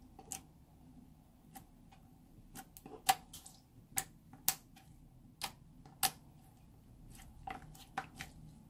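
Irregular sharp clicks and taps, about fifteen, the loudest about three and six seconds in, from handling clear slime and its tools while pigment is mixed in.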